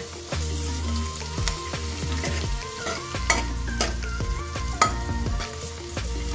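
Grated ginger and garlic sizzling in hot oil in a metal kadhai, stirred with a metal ladle that scrapes and clinks against the pan several times.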